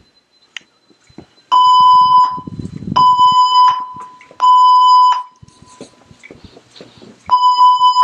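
Building emergency evacuation alarm sounding through its speakers: three loud, steady electronic beeps of under a second each, a pause, then the next round of three starting near the end. This is the temporal-three evacuation tone, signalling occupants to leave the building.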